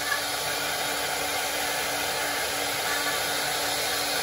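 Woodworking CNC router's high-speed spindles running while a cutter carves a wooden post turning on the 4-axis rotary attachment: a steady whirring hiss with a faint pulse about twice a second.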